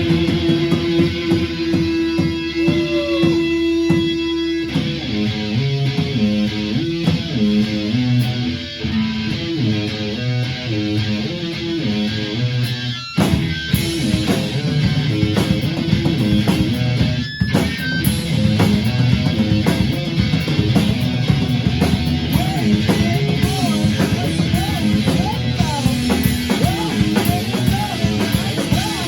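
Rock band music: electric guitar with drums, playing loudly throughout and cutting abruptly to a different passage about five seconds in, again around thirteen seconds and once more near seventeen seconds.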